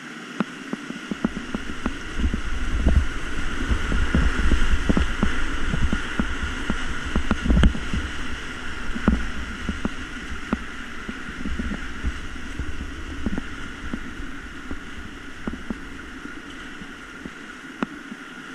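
Rushing whitewater of a river hole around an inflatable kayak surfing in it, with irregular low thumps and sharp slaps of water against the boat. Loudest in the first half, easing off later.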